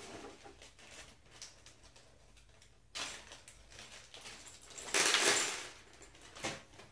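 Rustling and small knocks from handling flat-pack metal file cabinet parts and a paper instruction booklet, with a louder rustle lasting under a second about five seconds in.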